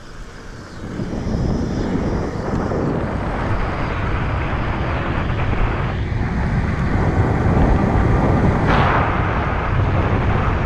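Wind rushing over the microphone, with tyre roar, from a fat-tire electric bike moving at speed. The noise rises about a second in and then holds steady.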